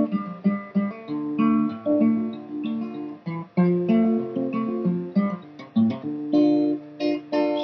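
Acoustic guitar played solo: plucked notes and chords, each ringing and fading in a steady, unhurried rhythm, as the instrumental introduction to a folk ballad.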